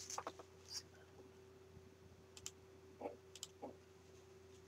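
Near silence with a faint steady hum, broken by a few short, soft clicks and rustles of a cardstock scrapbook page being handled and set down.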